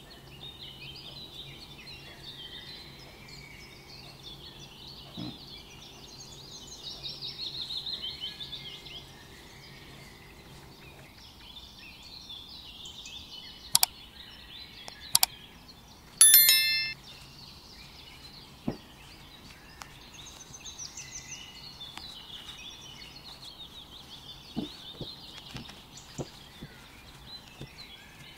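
Many small birds chirping and twittering throughout, over a faint low hum that stops partway through. About halfway in come two sharp clicks and then a short bright bell ding, the sound effects of a subscribe-button animation; the ding is the loudest sound.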